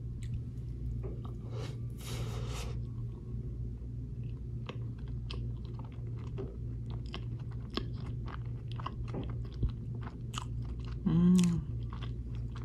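A run of small, crisp clicks and crackles close to the microphone over a steady low hum, with a brief voice-like hum a little past eleven seconds.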